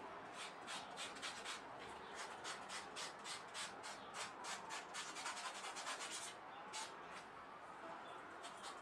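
Sandpaper rubbed back and forth along the cut edge of a vegetable-tanned leather strap to smooth it, in quick even strokes about three to five a second, with a short pause about six seconds in.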